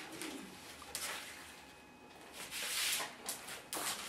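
Quiet footsteps of a person in flip-flops on a rug: a few soft slaps and knocks, with light rustling between them.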